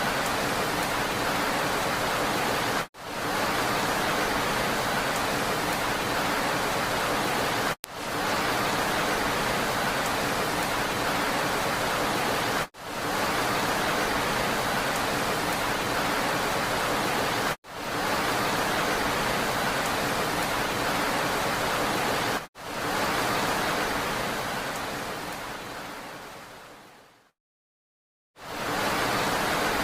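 Steady rain, an even hiss, cut by brief dips about every five seconds. Near the end it fades out to a second of silence, then starts again: a looped rain recording.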